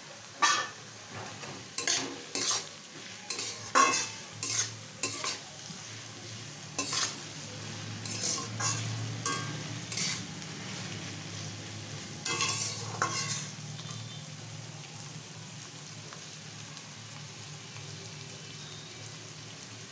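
A metal spatula scrapes and clinks against a steel wok as freshly added sliced onions are stirred and fried in hot oil, over a steady sizzle. The stirring strokes come in irregular clusters through the first two-thirds, then mostly the frying sizzle carries on alone.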